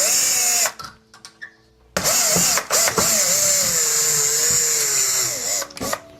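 Power drill running in two runs, a short one and then a longer one of about four seconds after a brief pause, its motor whine wavering and sagging in pitch near the end of the second run.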